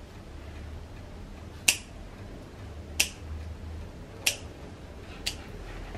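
Dog nail clipper snipping through a puppy's toenails: four sharp clips a little over a second apart, the last one fainter.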